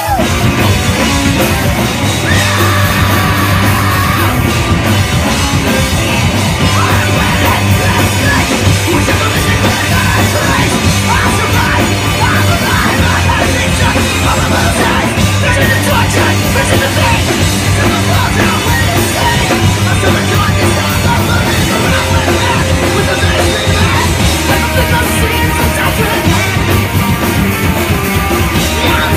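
Live punk rock band playing loudly: electric guitar, bass and drums with a singer's yelled vocals, in a continuous dense wall of sound.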